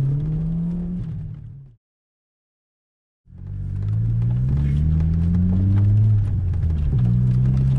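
Car engine heard from inside the cabin while driving on gravel and forest tracks, its pitch rising as it accelerates. About two seconds in, the sound fades out to silence, then fades back in a second and a half later with the engine running and climbing in pitch again before holding steady.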